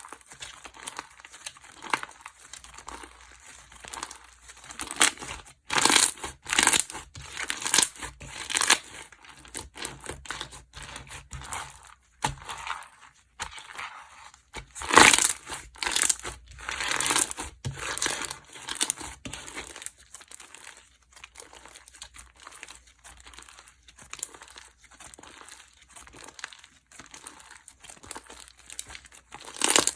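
Textured slime being squeezed, poked and stretched by hand: a run of irregular crackles and small pops, louder in stretches about six and fifteen seconds in.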